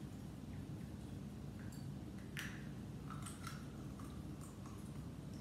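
Egg being opened over a glass bowl: a few faint clicks and crackles of eggshell being pulled apart, the loudest about two and a half seconds in, over a steady low room hum.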